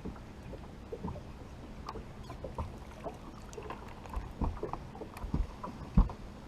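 Scattered light knocks and low thumps from a fishing boat and the gear in it, with the loudest thump about six seconds in.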